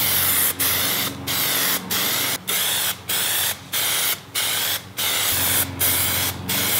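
Aerosol can of Plasti Dip rubberized coating spraying a second coat. The hiss comes in short even bursts, about three every two seconds, each broken by a brief gap.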